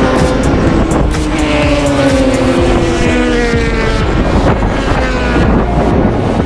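Race vehicle engines running hard on the circuit, several engine notes slowly falling in pitch, over heavy wind buffeting the microphone.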